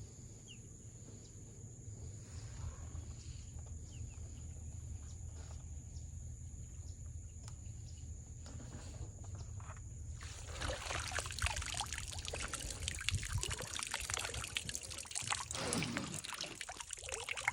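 Water splashing and trickling, as off a dip net lifted out of the water with crabs in it, starting about ten seconds in and growing louder. Before that, a steady high-pitched drone over a low hum.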